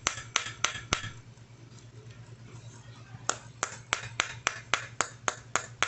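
Light, rapid taps, about four a second, driving a new ball bearing onto a polisher's rotor shaft, stopping for about two seconds in the middle and then going on.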